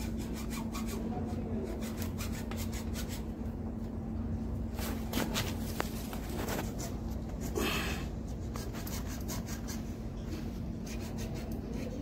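A metal blade scraping and cutting along the yellow PVC insulation of a heavy cable as the insulation is stripped, in quick, irregular repeated strokes. A steady low hum runs underneath.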